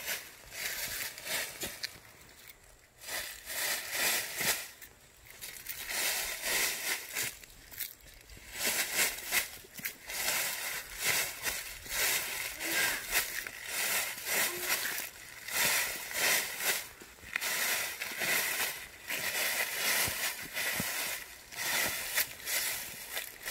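Dry fallen leaves crunching and rustling under a toddler's small shuffling steps, in irregular bursts with a couple of short pauses in the first eight seconds.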